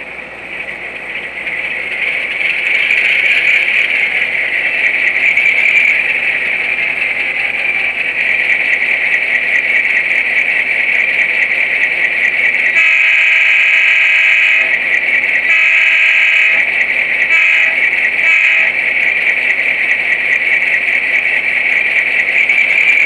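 Tsunami sound decoder in an HO-scale Athearn Genesis FP7 model diesel locomotive, playing its startup sequence through the model's small speaker. The diesel engine sound builds over the first few seconds and settles to a steady run. A little past halfway the horn blows four times: two longer blasts, then two short ones.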